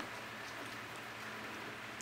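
Faint soft rustling of a hand rubbing a puppy's belly fur against a bedspread, over a steady low hiss.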